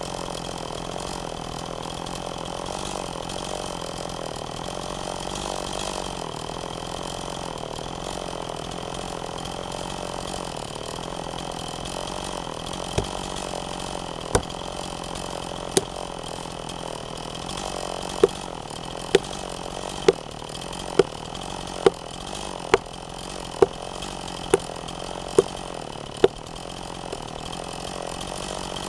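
An engine running steadily, with sharp knocks over it: a few scattered ones at first, then a regular run of about one a second in the second half.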